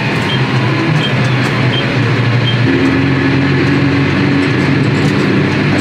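John Deere 6R tractor engine running under way on the road, heard from inside the cab, its note changing about halfway through. Four short high beeps sound in the first half.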